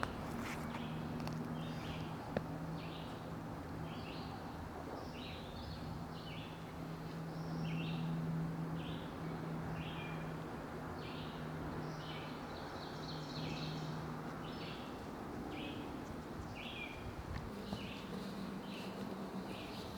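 A bird chirping repeatedly, short high notes about one or two a second, over a low steady hum that stops about three-quarters of the way through.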